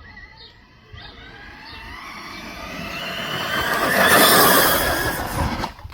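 RC car's motor and drivetrain whining as it speeds up, the pitch climbing steadily and getting louder, at its loudest about four seconds in before fading away.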